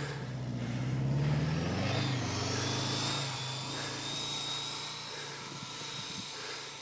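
Volkswagen Syncro van's engine revving as it pulls away through deep snow, its pitch rising about two seconds in, with a thin high whine over it for a few seconds. It gets fainter toward the end as the van drives off.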